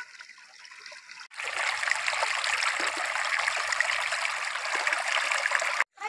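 Shallow stream water trickling and running over rocks, a steady rushing hiss that starts abruptly a little over a second in and cuts off just before the end.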